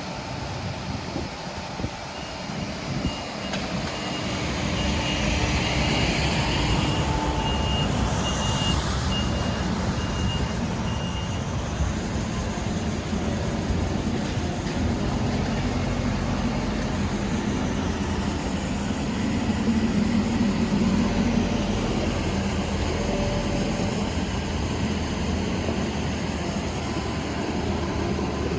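Merlo telescopic handler's diesel engine running steadily as it manoeuvres, louder from about four seconds in, with its high reversing beeper sounding about twice a second for the first ten seconds or so.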